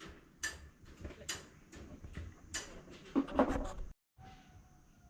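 Footsteps on a construction site's wooden boards, a short knock roughly every half second, with a louder, rougher clatter a little past three seconds. The sound drops out completely for a moment just before four seconds.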